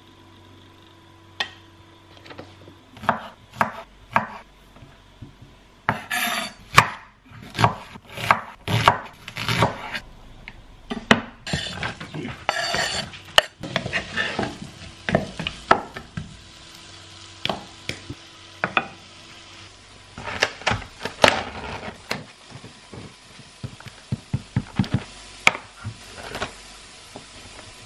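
Kitchen clatter: utensils, dishes and pans clinking and knocking at an irregular pace during food preparation, some strikes ringing briefly, over a faint steady hum.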